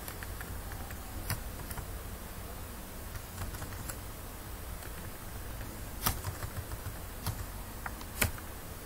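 Scattered clicks of computer keyboard keys and mouse buttons as new text is entered into a design, over a steady low hum.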